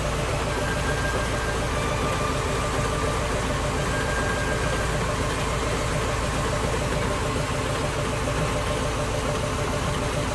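MerCruiser 5.7 L V8 marine engine idling steadily.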